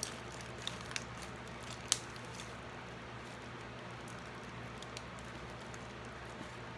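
Slime being worked by hand, giving a few faint sticky clicks and soft squishes, mostly in the first two seconds, over a low steady room hum.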